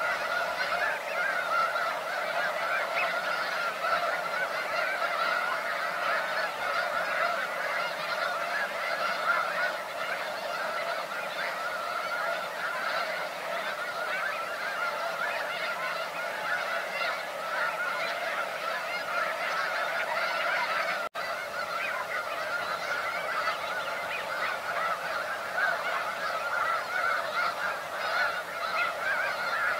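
A large flock of snow geese calling all at once: a dense, continuous din of overlapping high honks with no break between calls. The sound drops out for an instant about 21 seconds in.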